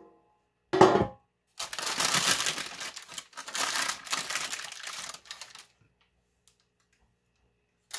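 Parchment paper rustling and crinkling for about four seconds as it is peeled back from the sides of a freshly baked loaf, after a short loud knock about a second in.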